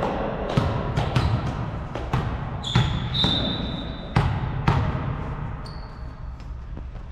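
Volleyball play in a gym: a string of sharp smacks of the ball being hit and bouncing on the hard court floor, with a few short high squeaks of sneakers on the court around the middle.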